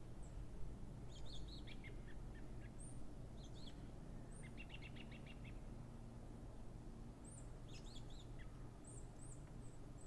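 Small songbirds chirping, with a short rapid trill about halfway through and a cluster of high chirps near the end, over a steady low background rumble.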